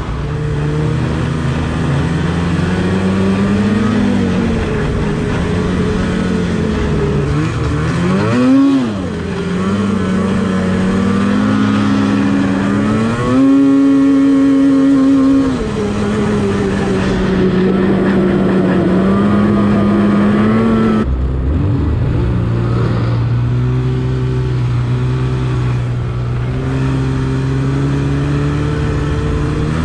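Polaris Switchback Assault snowmobile's two-stroke engine running under way, its pitch rising and falling with the throttle. There is a quick rev about eight seconds in and a higher, held note for a couple of seconds around the middle. About two-thirds of the way through, it changes abruptly to a lower, steadier engine note.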